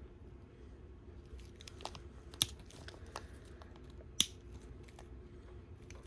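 A few light clicks and taps as small plastic toy rings and their packaging are handled, the sharpest about two and a half and four seconds in, over a faint low hum.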